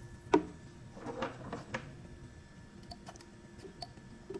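One sharp click about a third of a second in, then about a second of rustling and small clicks, and a few faint ticks later: hands handling and picking at a 3D-printed plastic part.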